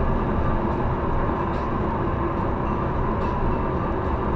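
Steady road and tyre noise of a car cruising at highway speed, heard from inside the cabin: an even low rumble that holds level with no change.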